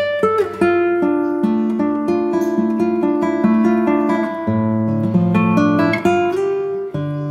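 Background music: acoustic guitar playing plucked, picked notes in a steady flowing pattern.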